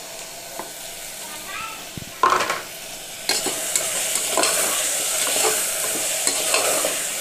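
Double beans and onion-tomato masala frying in an aluminium pressure cooker, sizzling while a metal spatula stirs and scrapes the pot. There is a knock about two seconds in, and the sizzle grows louder a little after three seconds in.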